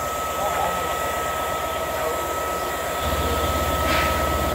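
Locomotives standing at the platform: a diesel locomotive's engine running at a standstill, a steady hum with a high continuous whine over a hiss. The low hum grows louder about three seconds in.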